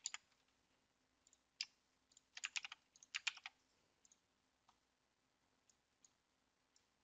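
Faint computer keyboard typing in three short quick bursts, as a phone number is keyed into a form field, followed by a few single clicks spaced about a second apart, typical of a mouse.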